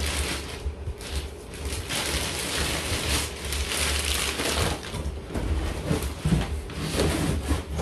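Clear plastic wrapping crinkling and rustling as it is pulled off and bunched up by hand, over a steady low hum.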